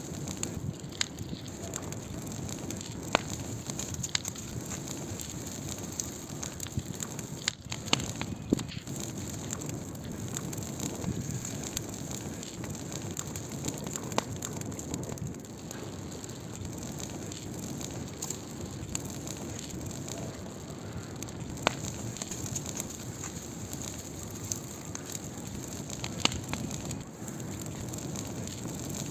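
Burning firewood, crackling: a steady low rushing with a high hiss, broken by sharp pops every few seconds.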